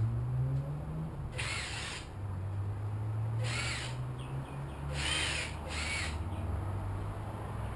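A bird calling four times, short calls spaced one to two seconds apart, the last two close together, over a steady low hum.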